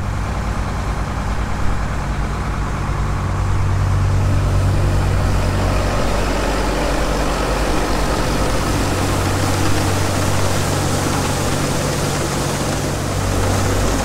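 Old Farmall tractor engine running steadily, driving a grain auger by its power take-off, with a broad hiss that grows stronger a few seconds in as a wagon of wheat unloads.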